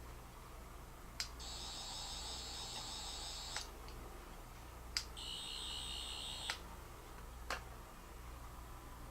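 Sonic screwdriver buzzing twice: a high, warbling whine of about two seconds, then a shorter one of about a second, each switched on and off with a sharp click. Another click follows near the end.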